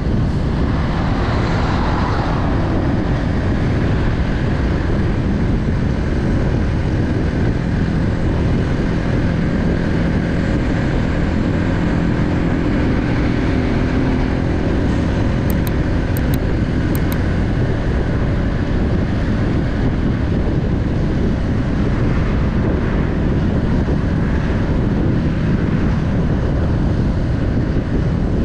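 Car driving: steady engine and tyre-on-road noise, heaviest in the low end, with a faint engine tone coming through near the middle.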